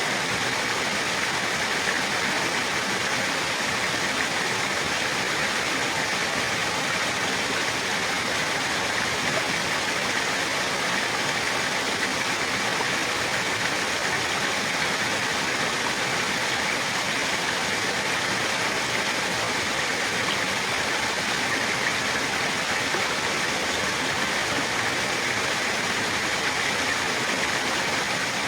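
Running water: a steady, unbroken rush like a stream or small waterfall.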